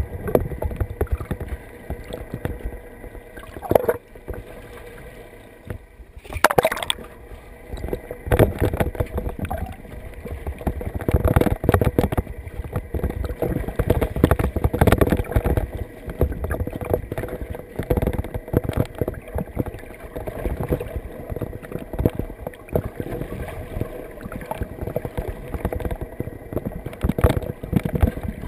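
Muffled water sloshing and gurgling against a GoPro's waterproof housing held just under the surface, rising and falling unevenly, with a faint steady hum underneath.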